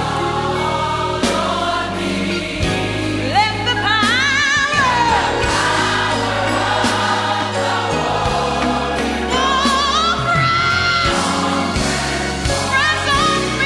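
Gospel music: a mass choir singing over a steady bass line, with a high gliding melody line with vibrato rising over it twice, about four seconds in and again near ten seconds.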